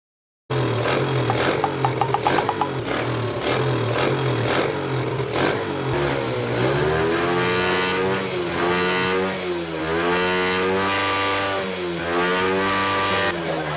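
Motorcycle engine running, starting about half a second in: it idles steadily at first, then from about six seconds in it is revved up and down several times.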